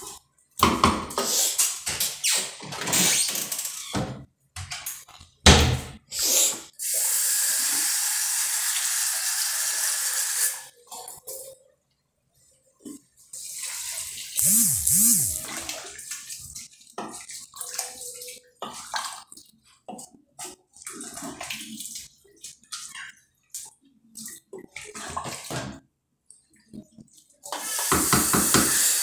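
Spoon stirring and scraping in an aluminium pot of rice and vegetables, with short clatters. Partway through, water runs steadily for a few seconds.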